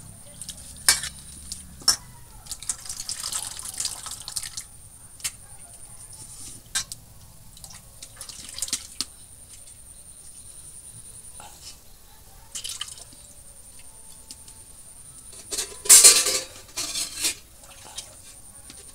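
Hands swishing chopped gandal (skunkvine) leaves in water in a stainless steel bowl: splashing and dripping with light clinks of the bowl, in scattered bursts, the loudest splashing near the end.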